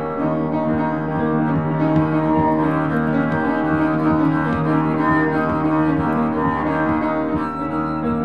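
Double bass bowed in long sustained tones, with an upright piano playing alongside; the sound is dense and steady, with many notes held at once.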